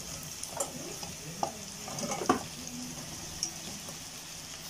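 Fried tofu cubes sizzling in hot oil with sautéed onion in a stainless steel pot, as the cubes are tipped in and stirred with a wooden spatula. The spatula and cubes knock against the pot a few times over the steady sizzle.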